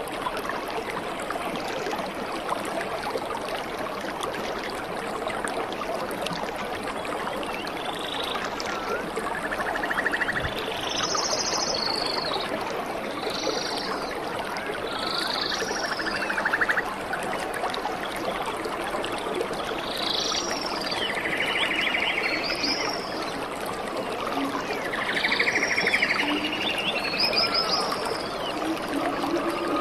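Steady rush of water from a rocky mountain stream and waterfall. From about eight seconds in, a string of short high chirps and several buzzy trilling calls from animals join it.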